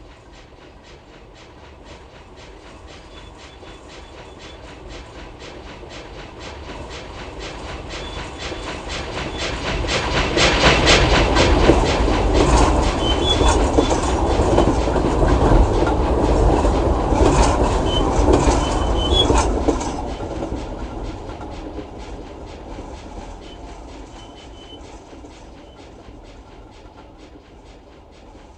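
A train passing by with a rhythmic clatter of wheels over rail joints. It grows louder over the first ten seconds, is loudest for about ten seconds, then fades away.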